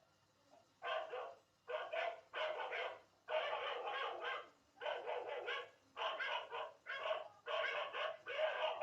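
Dog barking repeatedly in quick runs of barks, with short pauses between the runs.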